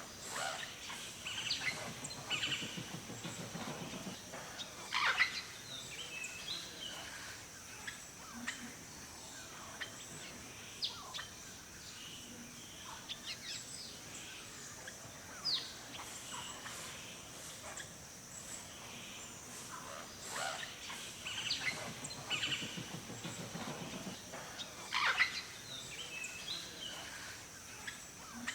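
Wild birds in a forest chirping and calling: scattered short chirps and quick sharp calls, busiest near the start and again toward the end, over a steady high-pitched hiss.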